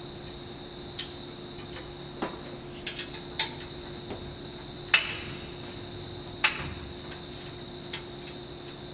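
A scattered series of sharp clicks and knocks of hard objects, about eight in all, the loudest about five and six and a half seconds in, over a steady faint high whine and low hum.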